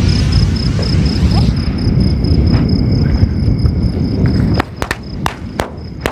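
Super Star sky rocket's rushing hiss fading as it climbs away, under the steady chirping of a cricket and a low rumble that stops abruptly about four and a half seconds in. Near the end come several sharp cracks as the attached seven-shot firework pops on the ground.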